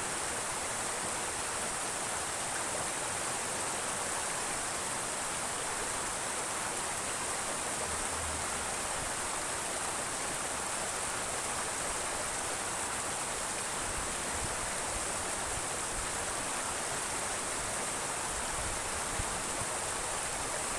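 Steady rush of fast-flowing water tumbling over stones in a narrow concrete- and stone-walled ditch.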